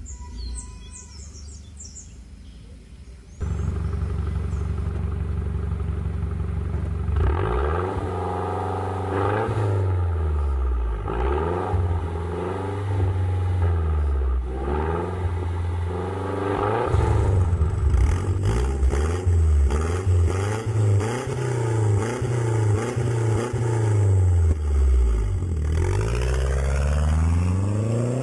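Mazda CX-7's 2.3-litre turbocharged four-cylinder through a cat-back exhaust. It runs steadily at idle at first, then is revved again and again, the pitch climbing and falling with each rev. Near the end it climbs in pitch in one long pull as the car accelerates.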